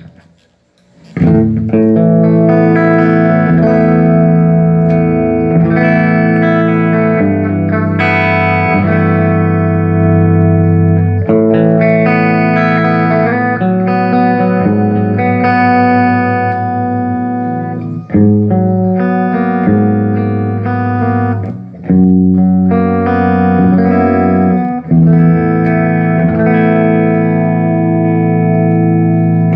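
Electric guitar played through a Line 6 Flextone III modelling amp, ringing out held chords that change every second or few, starting about a second in. It is a sound test of the amp with its pots and switches newly replaced.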